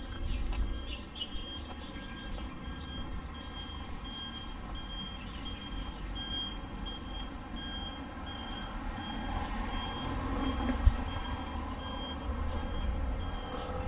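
An electronic beeper sounding short, even beeps a little under twice a second, over a low street rumble. The beeps fade in the last few seconds as the rumble grows.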